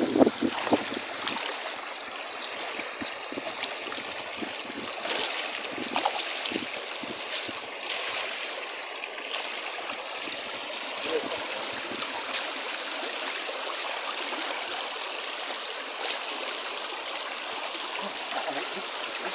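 Shallow rocky stream running over stones: a steady rush of water. It opens with a brief louder jumble in the first second, and a few small splashes and knocks come through as someone wades and puts his hands into the water.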